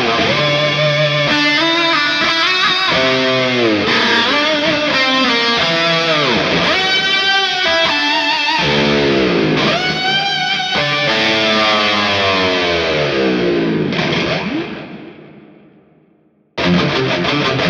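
Ibanez PIA electric guitar played through an amp simulator, a driven lead line with several pitch bends. It ends on a long bent note that fades away from about 14 seconds in, and a new passage starts just before the end.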